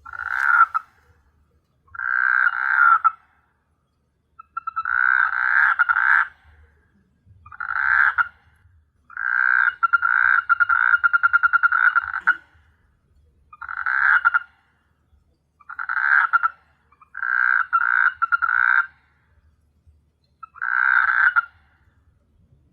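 A frog calling at night in a series of rapid rattling croaks, each about a second long, with short pauses between them and one longer run of about three seconds in the middle.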